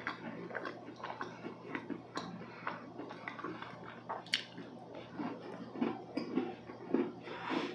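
Close-miked chewing of a soft, moist chocolate nut cookie, with frequent small wet mouth clicks. A sharper bite into the cookie comes about four seconds in.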